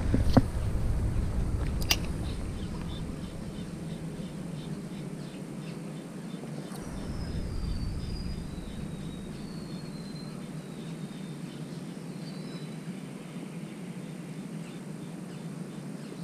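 Outdoor ambience with a low wind rumble on the microphone, a couple of light clicks near the start, and a few faint short bird chirps in the middle.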